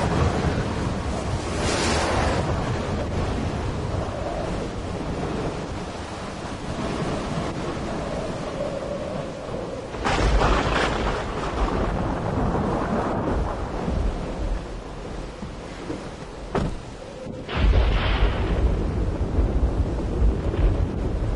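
Strong tornado storm wind gusting against a phone's microphone, a dense rushing noise with heavy low rumbling buffets that surge about ten seconds in and again near the end.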